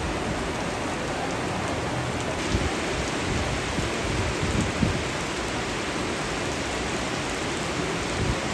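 Steady rain falling, with a few heavier drops knocking now and then.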